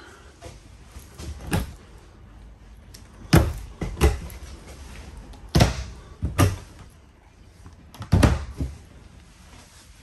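RV overhead cabinet doors being opened and shut in turn. A string of sharp knocks: one light one, then three pairs, each pair under a second apart.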